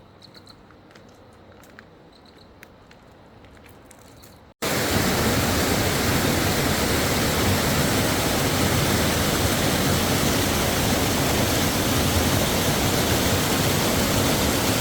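A waterfall's steady, loud rush of falling water. It cuts in suddenly about four and a half seconds in, after a quiet stretch with faint clicks and a few high chirps.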